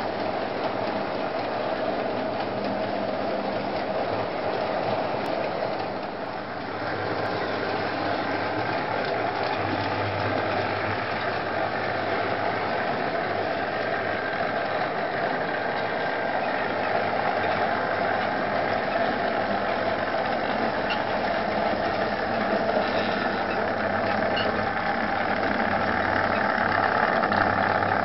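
Model railway trains running on the layout: small electric motors whirring and wheels rattling along the track. It grows louder near the end as a locomotive passes close.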